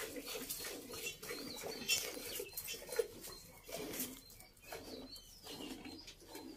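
Cow being milked by hand: jets of milk squirting into a steel pot in an even rhythm, about two strokes a second, with low bird cooing behind.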